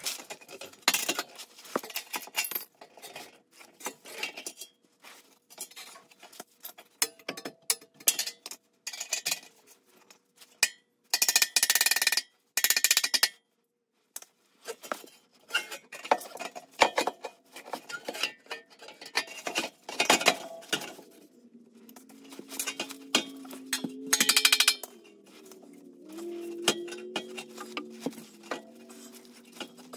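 Hand tools and exhaust parts clinking and knocking on metal as the exhaust is worked on from underneath. There are two short, louder stretches of dense rattling or scraping, one about a third of the way in and one near the end. In the last quarter, faint held tones change pitch in steps.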